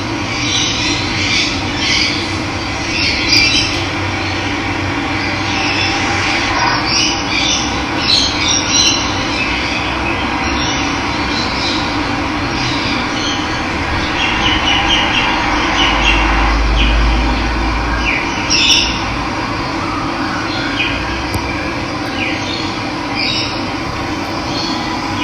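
Running water with a steady rush, with wild birds chirping and calling over it throughout.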